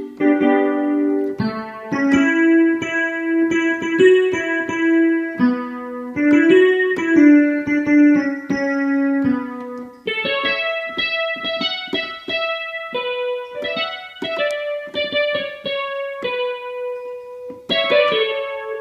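Korg Krome workstation keyboard playing one of the Korg M1 sounds loaded into it, in an electric-piano-like tone: a melody over held chords, turning to shorter, detached notes about halfway through.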